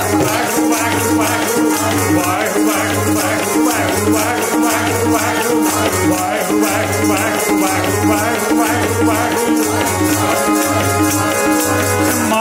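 Sikh kirtan music: deep drum strokes keep a steady beat, a fast jingling rattle-like percussion plays on top, and a wavering melody line runs over them.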